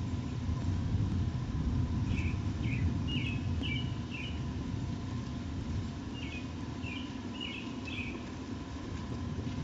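Two runs of short, high bird chirps, five or six quick notes each, starting about two seconds in and again about six seconds in, over a steady low rumble and a faint steady hum.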